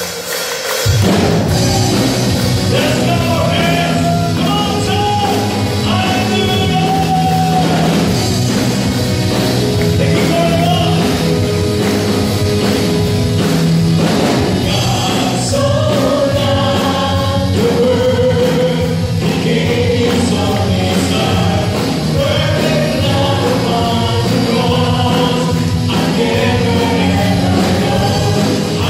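Live church worship band and singers performing a praise song: several voices singing into microphones over drums and guitar. The full band comes in about a second in and plays on steadily.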